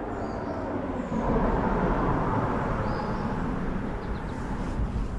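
A rushing noise with a low rumble beneath it, swelling to a peak about two seconds in and then slowly easing off.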